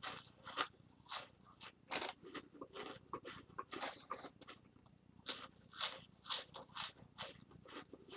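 Saltine crackers being chewed, dry crunching at about two crunches a second.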